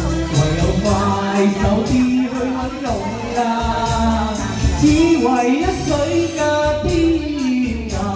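A man singing a Cantonese pop song into a microphone over a karaoke backing track with a steady beat.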